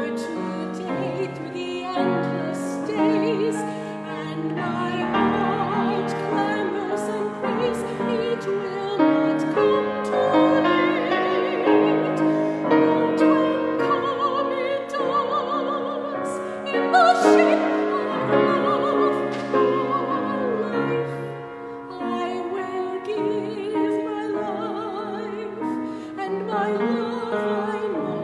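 Classical soprano singing with a wide vibrato, accompanied by piano. The loudest, highest phrase comes about 17 seconds in.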